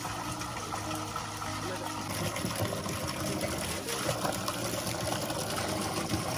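Borewell water gushing steadily from a hose pipe and splashing into a stone tank of water, with soft background music underneath.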